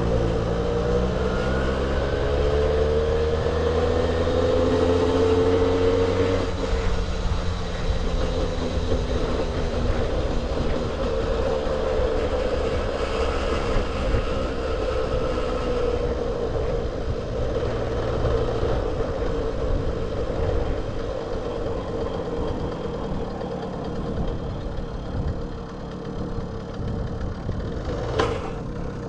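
1978 Puch Sport MK II moped's 50cc two-stroke engine revving up as it accelerates over the first few seconds, then running steadily at cruising speed. A sharp click near the end.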